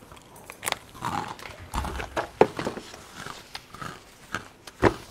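Close-miked eating sounds: chewing and lip smacking, broken by irregular sharp clicks, the loudest one just before the end.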